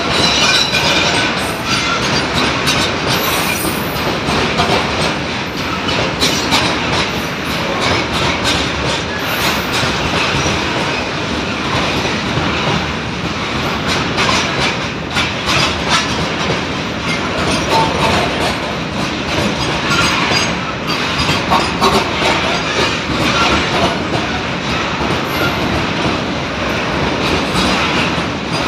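Freight train of bogie petroleum tank wagons rolling past, loud and steady: steel wheels running on the rails, with a continual clickety-clack as the wheelsets cross rail joints.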